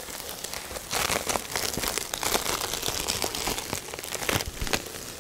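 Rustling and crinkling with small clicks and knocks as a beehive is opened, busiest from about a second in and easing off near the end.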